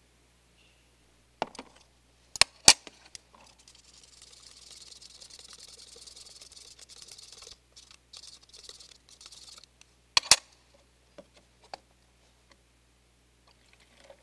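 Sharp clicks and knocks of a kettle and cups being handled, loudest about two and a half seconds in and again near ten seconds. Between them comes a stretch of light, high scraping as a spoon stirs dry yeast into warm water in a small clear cup.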